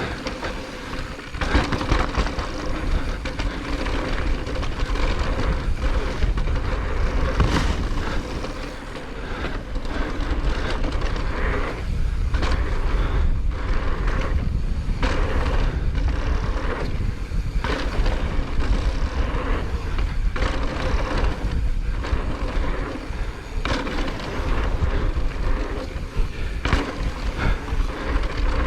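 Mountain bike riding fast down a dirt trail: tyres rolling over dirt and rocks, with the bike clattering and rattling over bumps and a constant low rumble of wind on the microphone.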